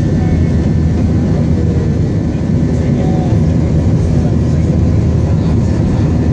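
Airliner jet engines and rushing air heard from inside the passenger cabin during the climb after takeoff: a loud, steady low roar.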